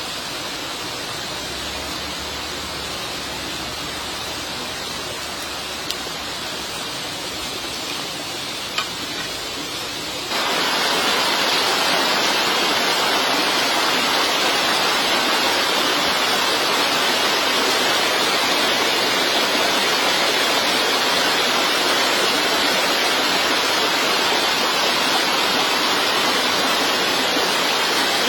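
Steady rushing noise of running water or rain, jumping abruptly louder about ten seconds in, then holding steady. A couple of faint clicks sound in the quieter first part.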